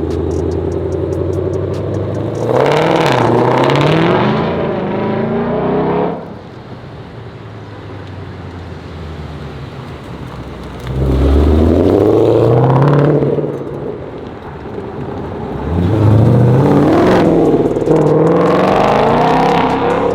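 Ford Shelby GT500's supercharged V8 accelerating hard in three loud pulls, revs climbing and dropping back as it goes up through the gears, with quieter steady running between the pulls.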